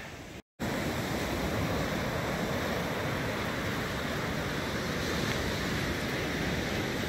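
Surf breaking and washing up the beach, a steady rushing with some wind on the microphone. The sound drops out briefly about half a second in.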